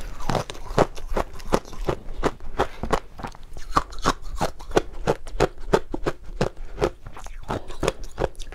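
Close-miked crunching of a mouthful of shaved ice dusted with matcha powder being chewed, a quick, steady run of crisp crunches at about four or five a second.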